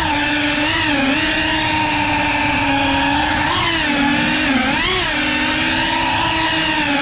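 FPV quadcopter's brushless motors and propellers whining steadily, the pitch swooping up and down with throttle changes about a second in and again around three and a half and five seconds.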